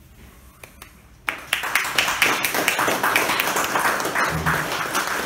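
Audience applauding, starting suddenly a little over a second in and carrying on steadily after a brief quiet with a few faint clicks.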